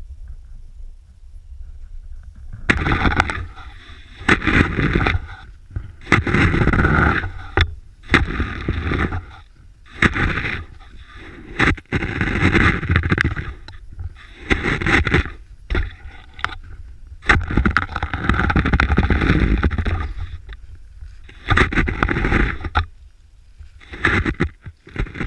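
Cross-country skis swishing and scraping through deep snow in repeated strides, an uneven burst every second or two, starting about three seconds in.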